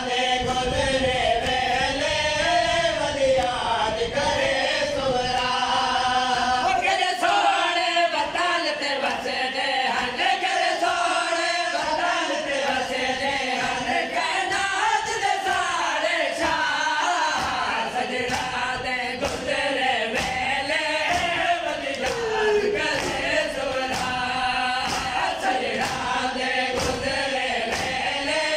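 Men's voices chanting a noha, a Shia lament, in unison, over repeated slaps of open hands beating on chests in matam.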